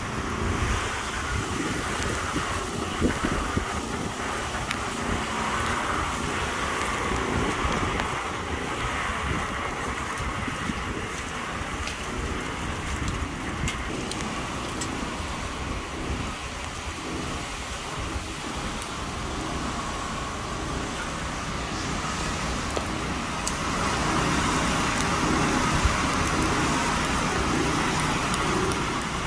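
Hurricane wind and rain rushing steadily, with gusts buffeting the microphone in a heavy rumble. It grows louder for a few seconds about 24 seconds in.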